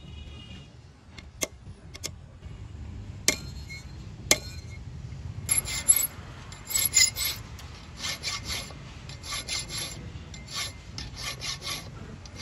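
Steel hand file rasping across the teeth of a saw blade clamped in a vise, metal on metal, in short back-and-forth strokes of about two a second from about halfway in. Before the strokes start there are a few sharp single clicks.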